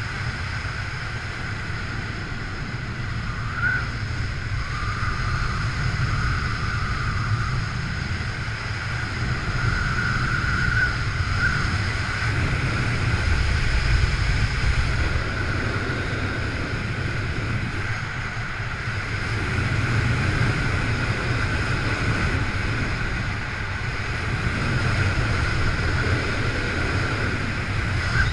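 Wind rushing over the camera's microphone during a parachute descent under canopy: a steady rush with a low rumble that swells and eases every few seconds.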